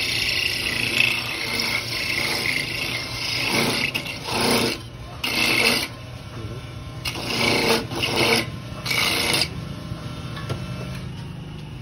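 Motor-driven coconut grater (kudkuran) shredding coconut meat as a half shell is pressed against its spinning toothed head: a steady rasping for about four seconds, then five short bursts of rasping as the shell is pressed on and eased off, dying down for the last couple of seconds.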